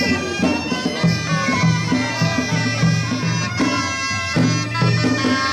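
Bagpipe music: pipes playing a folk melody over a steady drum beat.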